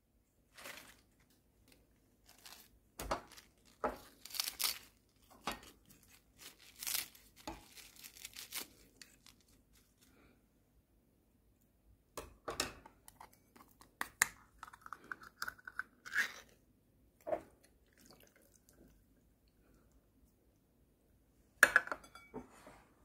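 Food-handling noises as lettuce leaves and then canned tuna are put onto noodles in a ceramic bowl: scattered rustles, crinkles, light taps and clicks in short clusters with pauses, and a sharper clatter near the end.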